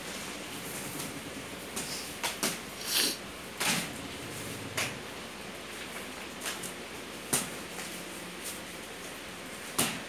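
Scattered clicks, knocks and short rustles of objects and packaging being handled, heard over a steady background hiss.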